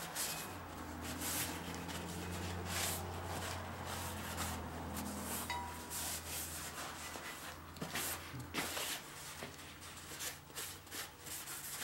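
A rag rubbing over a pinion guard in irregular wiping strokes, cleaning oil and Cosmoline off it.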